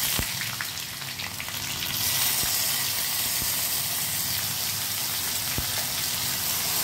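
Chopped onion sizzling in hot mustard oil with cumin seeds in a kadhai: a steady frying hiss that swells about two seconds in, with a few sharp spatter pops.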